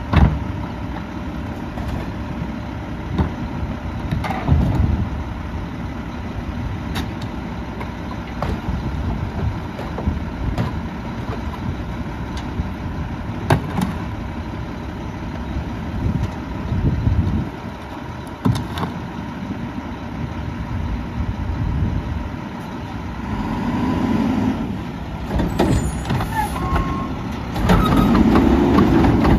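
Mack LEU garbage truck idling, with trash cans knocking and banging as they are emptied by hand into its Curotto-Can hopper. Near the end the engine revs up and louder as the hydraulic arm lifts the loaded Curotto-Can up over the cab.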